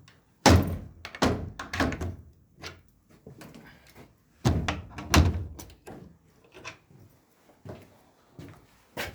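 Heavy thuds and knocks in clusters: a run of loud blows starting about half a second in, another around four and a half seconds in, and a single knock near the end.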